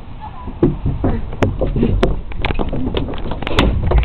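Camera handling noise: irregular knocks, bumps and scrapes over a low rumble on the microphone as the camera is carried in a hurry over playground equipment.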